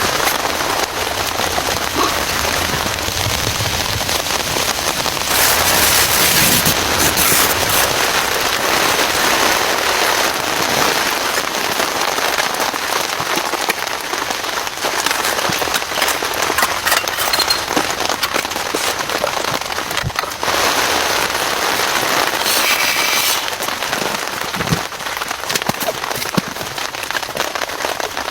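Heavy rain falling: a dense, steady patter of drops striking a surface close by, briefly heavier a few seconds in.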